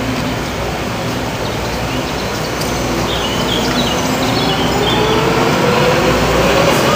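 Vienna U-Bahn train pulling away from a station: a steady rumble growing louder, with a motor whine that rises in pitch from about four seconds in as the train picks up speed.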